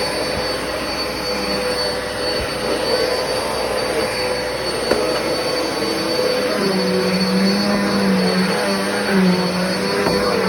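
Black and Decker vacuum cleaner running steadily with a high whine while vacuuming; about two-thirds of the way in a lower hum joins in, as if the load on the motor changes.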